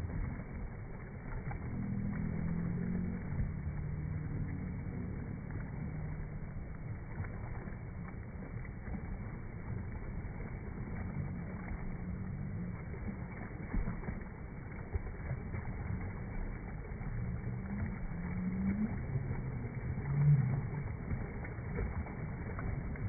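Steady rushing noise of a waterfall, with low hums that come and go and rise and fall now and then.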